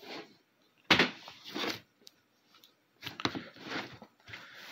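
Cardboard collectible box handled on a wooden desk: a sharp knock about a second in, followed by rubbing and scraping of cardboard, then more scuffing over the last two seconds.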